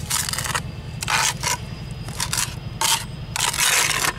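A small steel trowel scraping wet rapid-set cement onto a concrete step in a series of short strokes, working the patch into the damaged edge.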